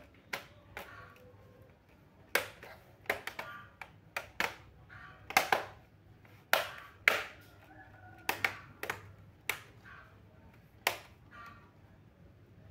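A series of sharp, irregular clicks and taps, well over a dozen, as of hard objects being knocked or handled.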